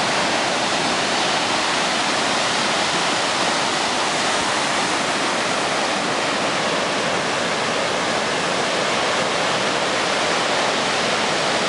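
Heavy ocean surf breaking and churning, a loud, steady rush of white water with no let-up.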